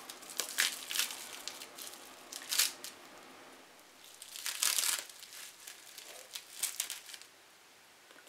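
Paper packing crinkling and rustling in irregular bursts as a small individually wrapped package is handled and unwrapped, the longest burst about halfway through, then it goes quiet near the end.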